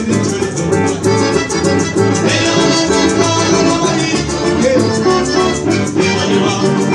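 Live band music: a Hohner piano accordion playing the melody over electric bass guitar and guitar, with a steady, regular beat.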